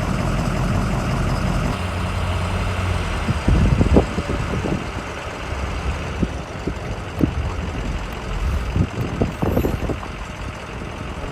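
Low, steady rumble of a running engine, with scattered knocks and thumps that are loudest about three and a half to four seconds in and again around nine to ten seconds in.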